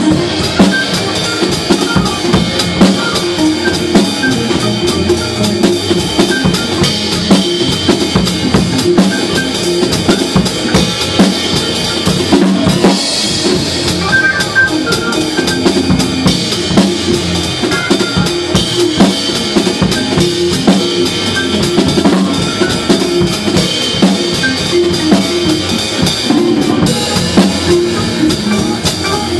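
Acoustic drum kit played continuously in a steady groove: bass drum, snare and cymbals struck in a dense, even rhythm.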